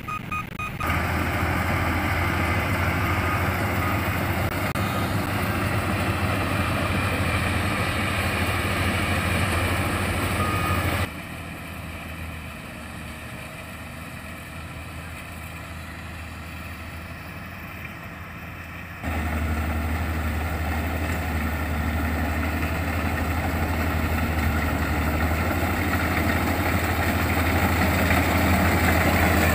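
Combine harvester engine running steadily with a low hum and a wide mechanical noise over it. The sound drops abruptly to a quieter level about eleven seconds in and comes back loud about eight seconds later.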